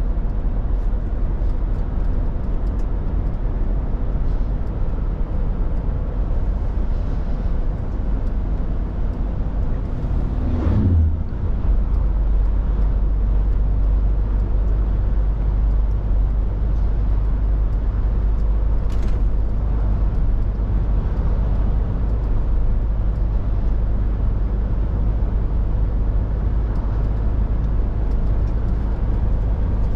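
Scania R450 articulated lorry on the move: the steady low rumble of its 13-litre six-cylinder diesel engine mixed with road noise. The engine note slides and shifts briefly about eleven seconds in, then carries on steadily.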